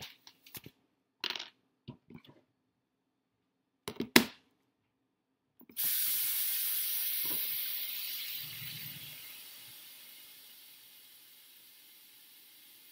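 A few knocks and clacks of things being handled at a stainless steel sink, the sharpest about four seconds in. Then the kitchen faucet is turned on and a stream of water pours into a bowl in the sink. It starts loud and fades over a few seconds to a steady, softer rush.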